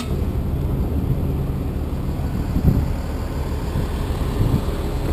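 Freightliner M2 tow truck's diesel engine idling steadily, a low even rumble.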